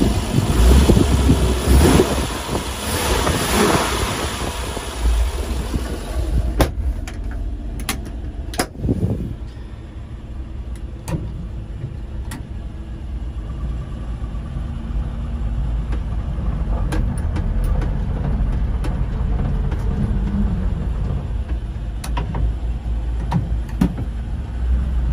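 The six-cylinder engine of a 1966 Dodge A100 van idling steadily after a cold start, loud and close for the first few seconds, then duller and steadier as heard from inside the cab. A few sharp clicks and knocks come between about six and nine seconds in.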